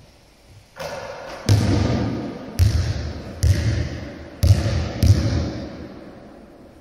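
A basketball hitting the hoop, then bouncing on a sports hall floor: about six sharp thuds spread over four seconds, each ringing on in the hall's echo.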